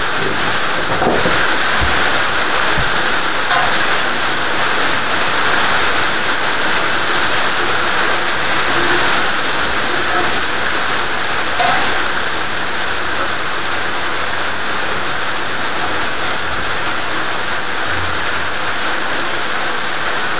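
Steady rain, an even hiss, with a few faint low knocks about two seconds in.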